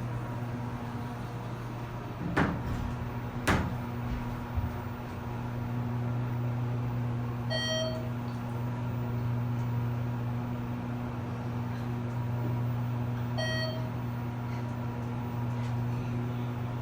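ThyssenKrupp hydraulic elevator in operation, with a steady low hum throughout. There are two sharp knocks about two and three and a half seconds in, and two short beeping chimes about eight and thirteen and a half seconds in.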